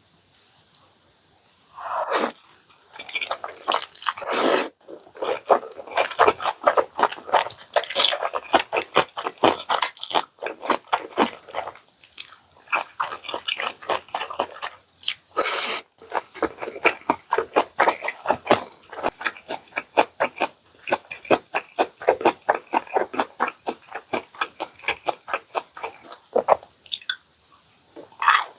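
Close-miked chewing: a rapid run of small clicks, broken by a few louder bites.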